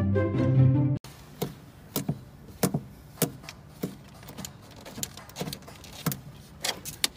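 French bulldog's claws clicking and scraping on a car's door sill and floor as it struggles to climb in: irregular sharp clicks about twice a second, some in quick pairs, over a faint low hum.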